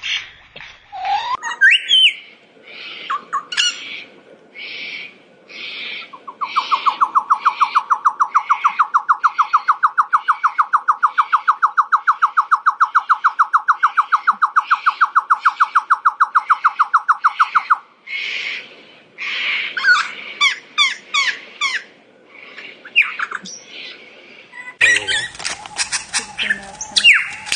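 Superb lyrebird singing a varied run of sharp whistles and chirps. About six seconds in comes a long, fast, even rattle of repeated pulses that lasts around eleven seconds with chirps over it, and after it more quick whistled notes.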